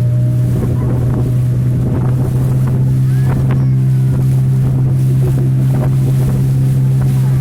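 Motorboat engine running steadily with a constant low drone, heard from aboard the boat.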